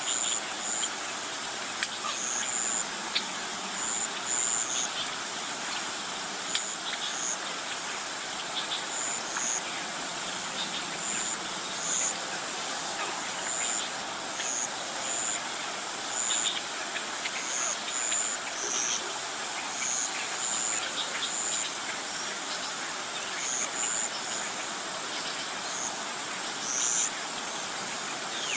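Insect and bird chorus: a steady high hiss with short, high chirps coming irregularly every second or so.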